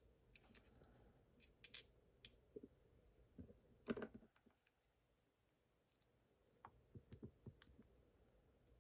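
Faint, scattered small metallic clicks and taps of lock pins and tools being handled while a pin tumbler lock is taken apart, with the loudest tap about four seconds in and a quick run of clicks near the end.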